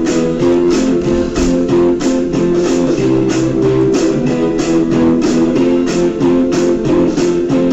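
Background music: a strummed guitar track with a steady beat.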